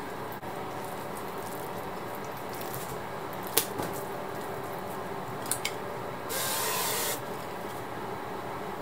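Cooking spray hissing from a can in one short burst of just under a second, a few seconds after a sharp knock and two lighter clicks.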